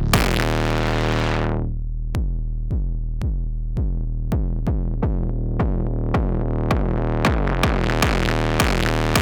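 Sampled analog synthesizer bass from the Palindrome 11 library playing a deep, sustained bass line. It opens with a bright hit whose filter closes down over about a second and a half, then moves into a pulsing pattern of sharp plucked attacks about twice a second that grows brighter toward the end.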